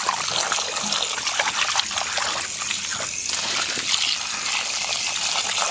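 A stream of running water pouring into a terracotta pot of water while hands swish and rub ivy gourds in it: steady splashing and trickling.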